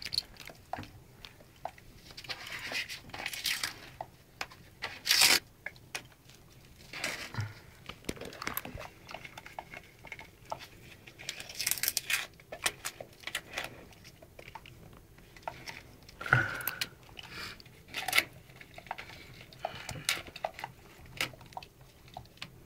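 Wallpaper being ripped off a wall in irregular tearing and crackling bursts, with a dog pulling at the strips with its mouth.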